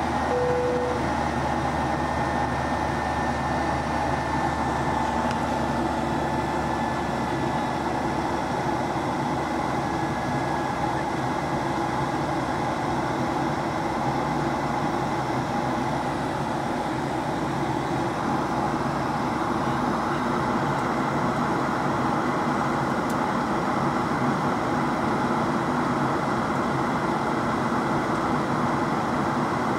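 Steady cabin noise of a jet airliner in the climb, heard inside the passenger cabin next to the engine: an even drone of engine and airflow with a faint steady whine over it.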